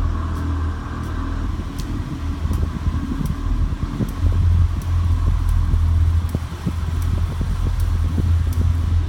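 Mk7 Volkswagen Golf R running with a steady low drone, over which a light click repeats roughly once or twice a second: the clicking noise the owner is trying to track down.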